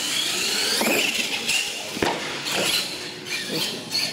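Radio-controlled monster truck driving on a concrete floor: a high motor and gear whine rising and falling in pitch as the throttle is worked, with a few sharp clicks.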